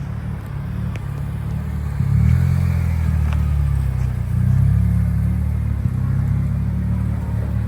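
Car engine running, rising in speed and loudness about two seconds in, with a deep, steady drone.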